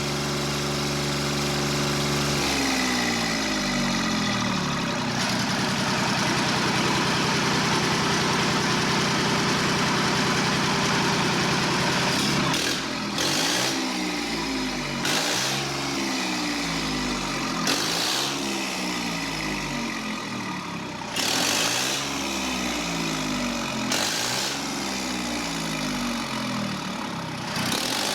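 Yanmar 3TNE84 three-cylinder diesel engine idling, then throttled up to a higher speed and held there. From about halfway it is revved up and back down again and again, about every two to three seconds.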